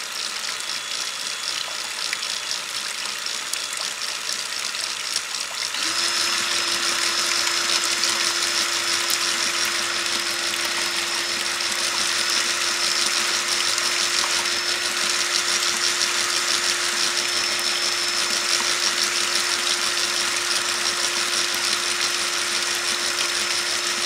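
Cordless drill spinning a sprocket that runs a wet motorcycle chain through a bucket of soapy water: the chain rattles over the sprocket while water sprays and splashes off it. About six seconds in the sound grows louder and a steady motor whine comes in.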